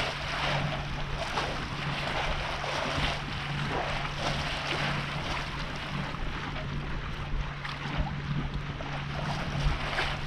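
Water rushing and splashing along a sailboat's hull while under way, with frequent short splashes, wind rumbling on the microphone, and a steady low hum underneath.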